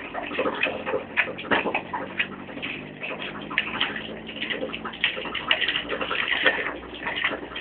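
Constant rattling and crackling of a vehicle bumping over a stubble field, with a low steady engine hum underneath.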